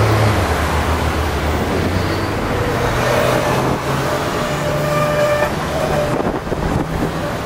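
Double-decker Hong Kong tram passing close on curved track, sped up to double speed, with a steady whine from its running gear for a couple of seconds around the middle. Road traffic runs underneath, with a bus engine's low hum in the first second or so.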